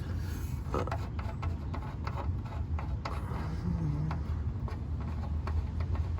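Light, irregular clicks and ticks of metal work at the oil pan drain plug, several a second, over a low steady hum.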